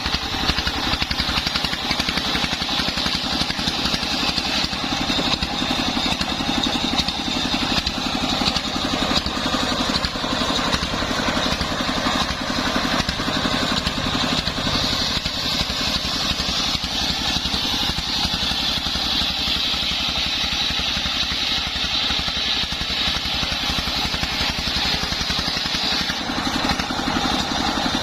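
Homemade engine-driven circular saw rig running steadily while sawing sengon wood into beams, with a constant high whine over the engine's rapid pulse.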